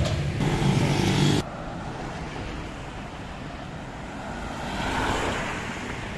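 Street traffic noise: a steady road rumble that swells and fades about five seconds in. It follows a louder opening second and a half that cuts off abruptly.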